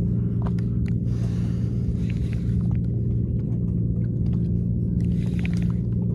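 A boat's engine running steadily, a low even hum, with scattered light clicks and knocks over it.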